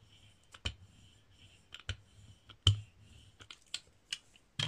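Scattered light clicks and knocks of a hand tool and cardstock on a craft mat as a layer is pressed onto a card base, with one sharper knock about halfway through.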